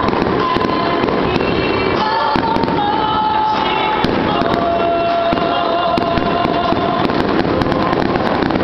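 Fireworks display: a dense, continuous crackling and popping barrage of fireworks, with no break.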